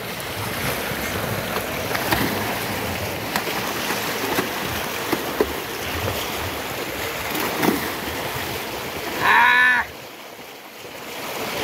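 Water gushing from a solar-powered tubewell's outlet pipe into a concrete bathing tank, with people splashing in the water. A person gives a short shout about nine seconds in.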